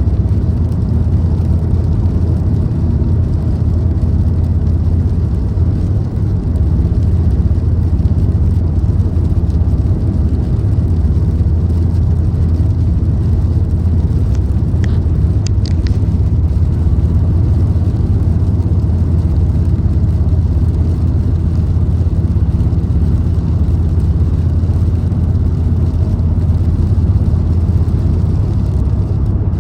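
Car cruising at steady speed on the open road: a steady low rumble of engine and tyre noise, with a few faint clicks about halfway through.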